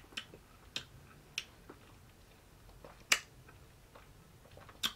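Mouth and spoon sounds of eating ice cream from a metal spoon: about five short, sharp wet clicks and smacks, the loudest about three seconds in.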